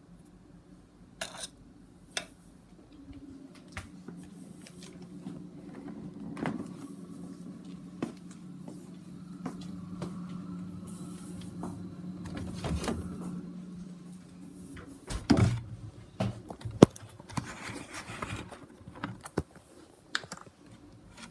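Refrigerator opened for milk: a steady low hum while the door stands open, then a loud thump about fifteen seconds in as a door shuts, followed by scattered clicks of a bottle being handled.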